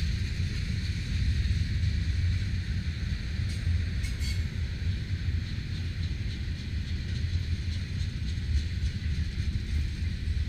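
Tank cars of a freight train rolling past: a steady low rumble of steel wheels on rail with a hiss above it, and a few faint clicks about four seconds in.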